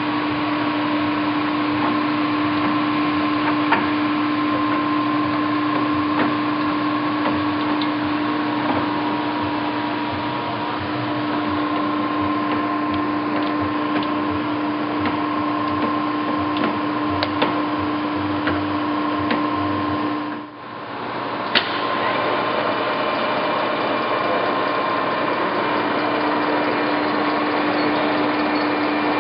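Clausing Colchester 1532 engine lathe running, a steady gear-train whine and hum with occasional light clicks. The sound drops out briefly about twenty seconds in, then picks up again with a click.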